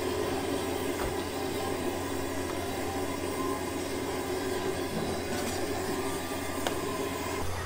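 A steady low rumble over a constant deep hum, with a few faint clicks on top.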